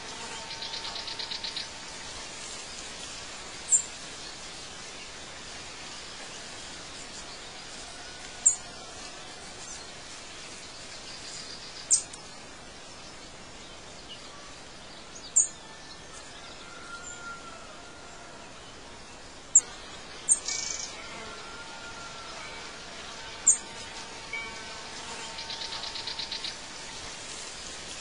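Outdoor ambience of bird chirps: short, sharp, high chirps every three or four seconds over a steady hiss, with a brief buzzy trill near the start and again near the end.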